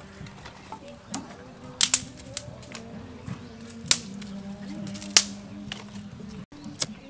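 Sharp, scattered clicks and knocks of a stick and lumps of charcoal against a clay charcoal stove as it is poked and cleared out, the loudest about two, four and five seconds in.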